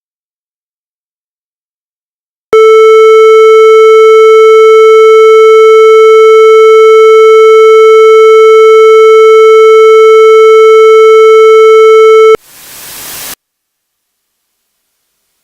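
A loud, steady electronic buzz tone starting about two and a half seconds in, held for about ten seconds at one pitch and cut off abruptly: a synthesized alert tone in a mock emergency alert broadcast. Right after it, about a second of static hiss grows louder and then stops suddenly.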